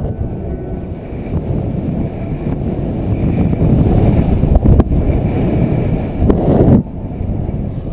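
Airflow from paraglider flight buffeting the microphone: a loud, gusting low rumble of wind noise that drops away briefly near the end.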